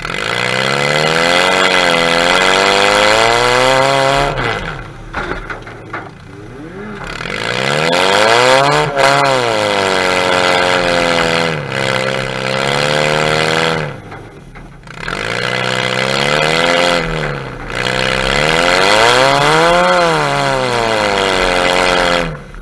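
Demolition derby car's engine revving up hard and dropping back, about six times over, heard close up from the car's own hood.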